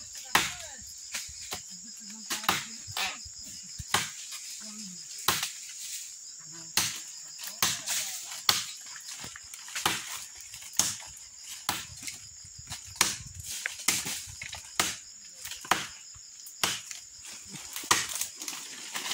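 Machete blade chopping into a thin tree trunk by hand, a quick uneven series of sharp wooden strikes, about one a second or faster. A steady high insect drone runs underneath.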